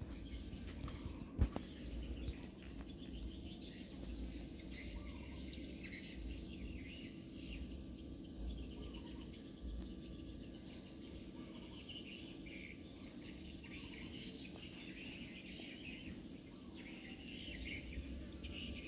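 Many soft, high chirping calls over a steady low hum, with one sharp click about one and a half seconds in.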